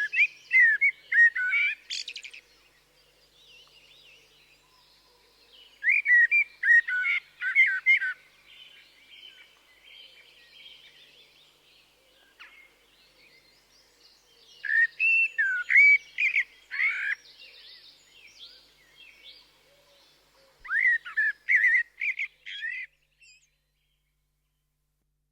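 Eurasian blackbird singing: four loud bursts of fluting, warbling phrases several seconds apart, with faint twittering between them. The song stops a couple of seconds before the end.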